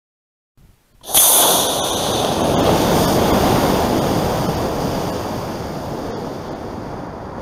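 Model rocket motors igniting at liftoff: a sudden loud whooshing rush about a second in, fading slowly as the rocket climbs away.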